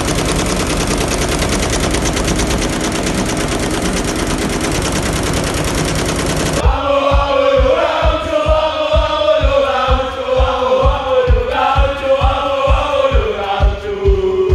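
Commercial multi-needle embroidery machine stitching at speed, its needles hammering in a fast, even rattle. About six and a half seconds in this cuts to a group of men singing a chant together over a steady low beat.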